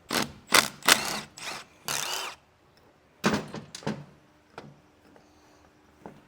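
Cordless power tool spun in a series of short bursts, about five in the first two seconds and two more a little after three seconds, as the bolts holding the actuator on a CFMOTO UForce differential are backed out; a few light metallic clicks follow.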